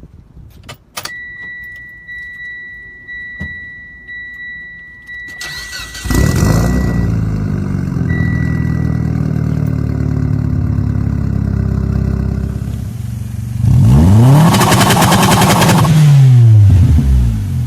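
Remapped Proton Inspira's 4B11 2.0-litre four-cylinder engine starting: a repeating electronic chime for the first few seconds, then the engine fires about six seconds in and idles steadily. About fourteen seconds in it is revved once, the pitch rising and then falling back toward idle.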